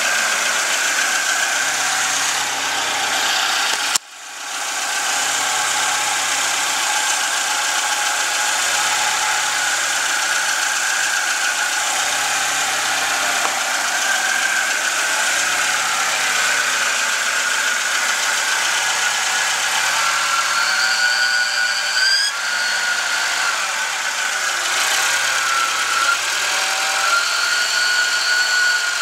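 Volvo 242's turbocharged four-cylinder engine running with a horrid high-pitched whine over the engine noise; a second, higher whine that wavers in pitch joins about two-thirds of the way through, and the sound drops out briefly about four seconds in. The cause is unknown: the turbo shows no shaft play, and the noise carries through the whole engine.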